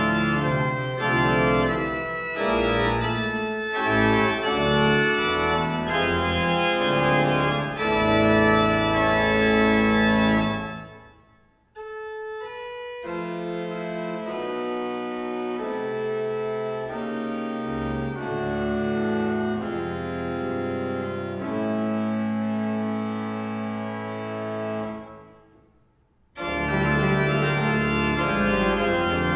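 1992 Smenge pipe organ playing sustained chords with a deep pedal bass. About ten seconds in it breaks off and the sound dies away in the church's reverberation. A quieter, lighter passage follows, then another pause near the end before the full organ returns.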